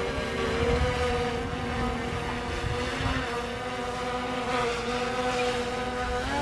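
Quadcopter drone flying overhead, its propellers giving a steady multi-tone buzz that wavers slightly in pitch. Wind rumbles on the microphone underneath.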